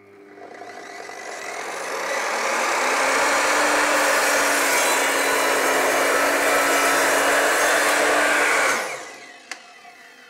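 Evolution R255SMS sliding mitre saw cutting a composite board with its multi-material blade. The noise builds over the first few seconds as the blade bites, runs loud and steady through the cut, then drops off sharply about nine seconds in and spins down.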